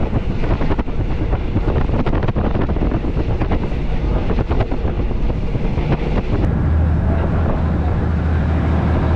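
Diesel railcar running along the track, heard from on board: a steady rumble and wheel clatter with wind noise on the microphone. About six and a half seconds in, a steadier low engine drone takes over.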